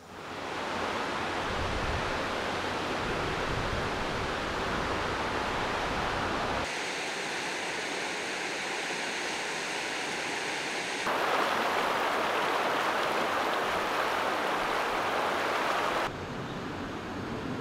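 River water flowing and rippling over stones, steady and even. It comes in several edited takes that change abruptly about seven, eleven and sixteen seconds in, and the stretch between eleven and sixteen seconds is the loudest.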